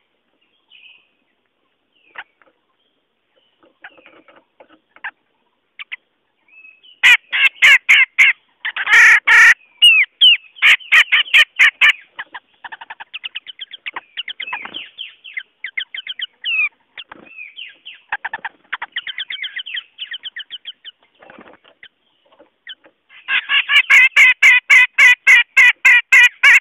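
Lure recording of cucak jenggot calls: sparse notes at first, then loud runs of rapid, harsh chattering notes, with a softer scattered stretch in the middle and another dense run near the end.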